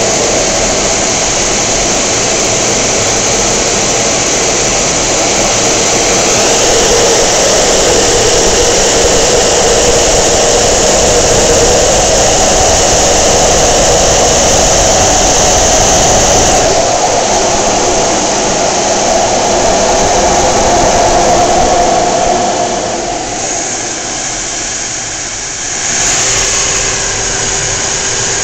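Jet engines of an F/A-18 Hornet and rushing air, heard from inside the cockpit in flight: a steady roar with a high whine. It drops for a few seconds near the end, then comes back up sharply.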